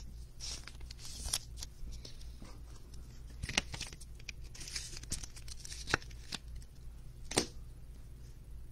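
Trading cards, a plastic card holder and cardboard boxes being handled: soft rustling of card and plastic with a few short, sharp clicks and taps spread through.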